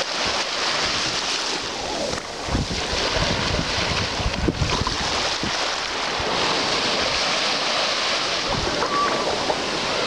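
Small waves lapping and washing up onto a sandy shore as a steady hiss, with wind buffeting the microphone in gusts a few seconds in.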